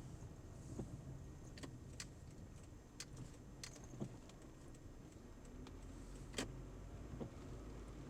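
Car driving, a steady low rumble with scattered sharp clicks and rattles at irregular intervals.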